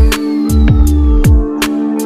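Electronic background music with a beat: deep kick drums that drop in pitch, sharp percussive hits and held synth notes.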